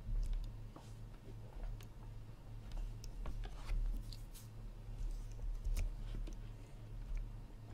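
Scattered clicks of a computer mouse and keyboard being worked, over a steady low electrical hum.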